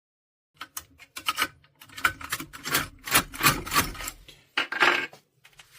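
Metal clicking and scraping of a self-impression tool being worked inside a Mottura lever lock: a quick run of sharp clicks and rubs, starting about half a second in.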